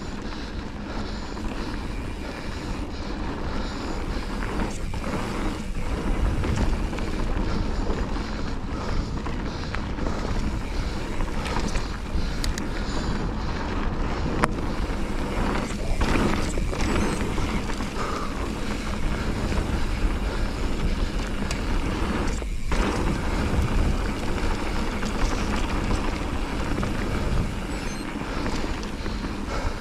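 Steady wind rushing over the microphone of a camera moving fast downhill, with a constant low rumble and no speech.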